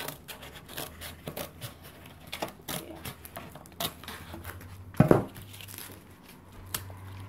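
Large stainless kitchen scissors cutting through corrugated cardboard: a string of short snips and crackles of the board, with a louder thump about five seconds in.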